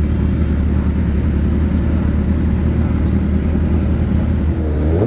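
Sport motorcycle engine running at low speed in a slow roll, a steady low hum, with one short rev that rises and falls near the end.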